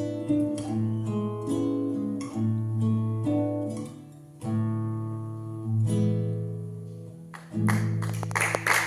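Solo acoustic guitar playing an instrumental interlude: plucked notes and chords ringing out, with a short pause about seven seconds in. The playing then comes back louder, with a noisier, strummed wash of sound near the end.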